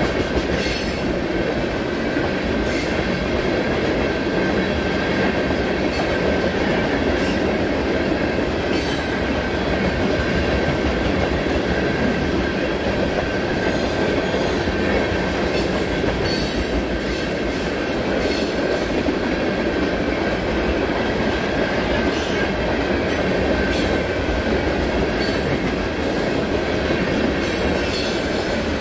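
Cars of a loaded rock train rolling past at steady speed, a continuous rumble of steel wheels on rail. Scattered clicks come every second or two, and a thin steady high squeal runs throughout.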